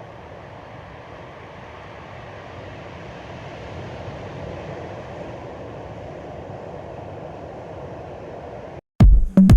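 Steady rushing noise of waves and wind at the shore. Near the end it cuts off suddenly, and loud electronic music with a heavy, even beat starts.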